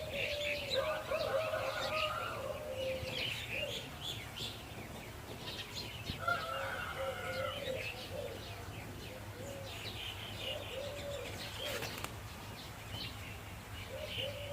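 Birds calling: many short high chirps over repeated low, arched cooing notes, with a faint steady low hum underneath.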